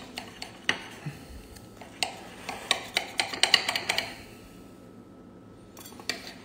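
Serrated kitchen knife sawing back and forth through a toasted egg-and-cheese sandwich on a plate, making crisp scraping and crunching clicks. They come in a quick run of strokes in the middle, pause briefly, then start again near the end.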